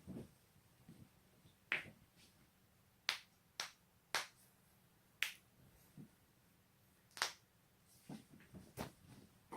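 Joints cracking: about seven sharp pops at irregular intervals, a second or so apart, with a few fainter pops between.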